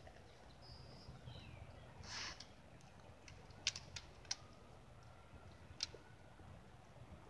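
A quiet outdoor pause with faint bird calls, a short high whistle and a falling chirp, then several sharp clicks around the middle.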